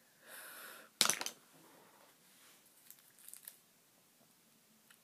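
Hands rummaging through a makeup bag and handling a packaged makeup brush: a soft rustle, a sharp plastic crackle about a second in, then a few faint clicks and one more sharp click at the end.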